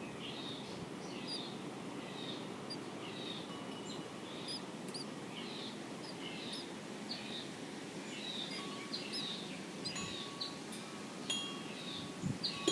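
A songbird calling over and over, short high notes about once a second, over a steady low background hum. A couple of sharp knocks come near the end.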